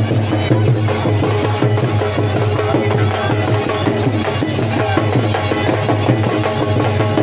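A traditional drum ensemble plays a steady, driving rhythm, with a pitched melody sounding over the drums.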